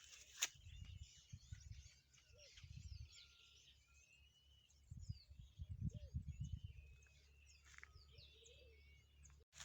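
Faint chorus of small birds chirping and calling, many short rising and falling whistles. There is a sharp click about half a second in, and low rumbles on the microphone around one second and again near the middle.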